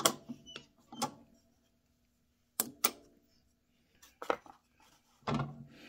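A few sharp clicks and knocks of hard objects being handled at a drill press, with quiet gaps between them; a short bit of voice comes in near the end.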